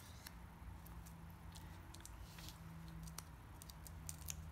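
Faint light ticks and rustles of cardstock pieces and adhesive being handled on a craft mat, scattered and irregular, over a low steady hum.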